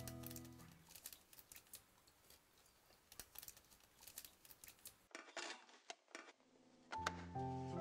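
Faint small clicks and paper rustling as butter cookies are set into a paper-lined metal tin and hands smooth the paper down over them, with a short scratchy rustle about five seconds in. Guitar music fades out at the start and piano music comes in near the end.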